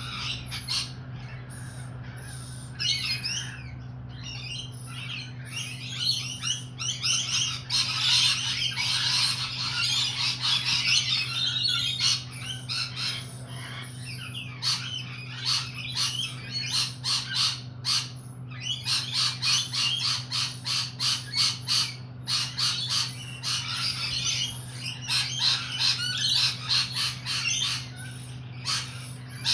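Lorikeets screeching and chattering in long runs of rapid, harsh calls, heaviest about six to twelve seconds in and again from about nineteen seconds on, over a steady low hum.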